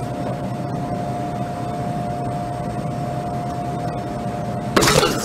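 Steady hiss with a faint steady hum, like wind and noise on a camera microphone. About five seconds in comes a sudden loud crash: a person's body landing hard on concrete.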